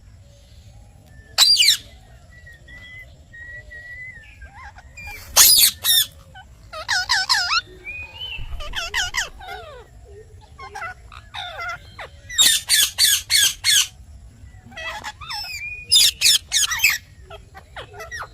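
Ring-necked parakeet squawking in loud bursts of rapid, high screeches, with softer whistles and chattering calls in between.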